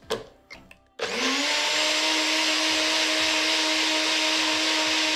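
A few sharp clicks, then about a second in a personal bullet-style blender's motor starts up. Its pitch rises quickly and settles into a loud, steady whir as it blends a banana and milk mixture until smooth.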